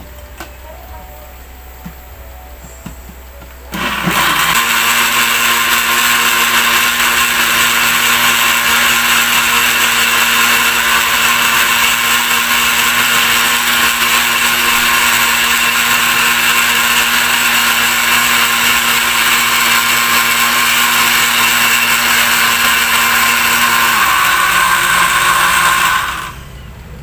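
Glass-jar countertop blender switched on about four seconds in and running steadily, liquidizing a juice of beets, carrots, ginger, fruit and water, with its pitch dipping slightly shortly before it is switched off near the end. Before it starts, a few light clinks of the plastic lid being fitted onto the jar.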